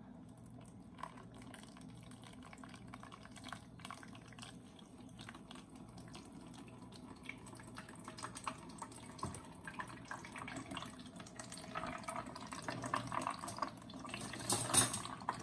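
Blueberry juice dripping and trickling through a mesh strainer and funnel into a plastic pitcher, with many small drips that grow busier after the middle. A loud clatter comes near the end.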